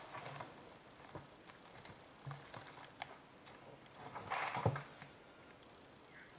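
Black bear working at a bait barrel, shifting the logs piled on it: scattered knocks and scrapes of wood, with the loudest clatter about four and a half seconds in.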